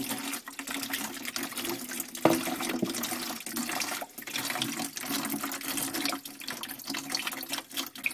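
Dark, sludgy central-heating water pouring from the drain valve of a Fernox TF1 magnetic boiler filter and splashing into water in a plastic bucket. This is the filter being discharged of the magnetite sludge and residue it has collected.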